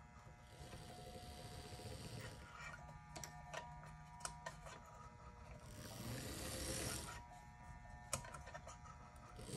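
Small electric motor of a 1950s Revell HO-scale EMD F7A model locomotive chassis, newly fitted with a rubber drive belt, running on test track. It whirs faintly with light clicking from the drive and wheels, swelling in two spells as the chassis shuttles back and forth.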